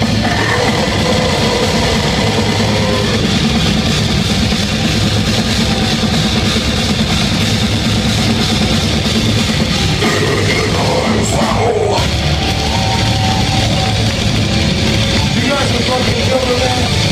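Death metal band playing live at full volume: distorted guitars and drums in a dense, unbroken wall of sound, with growled vocals over it at times.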